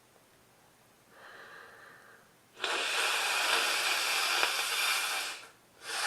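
A person with a head cold blowing her nose into a tissue: a faint breath about a second in, then one long blow of nearly three seconds and a short second blow near the end.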